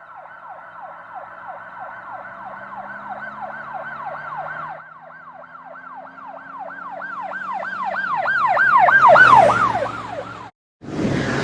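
Emergency vehicle siren in a fast yelp, about three falling sweeps a second, over an engine hum. It grows louder as the vehicle approaches and drops in pitch as it passes. Near the end it cuts off abruptly, and after a short gap a loud, even rumbling noise begins.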